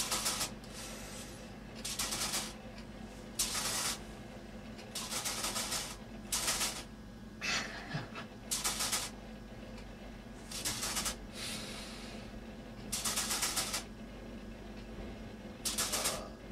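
Hand-held liquid nitrogen cryospray hissing in short bursts of about half a second, roughly ten times, a second or two apart, as it freezes a wart.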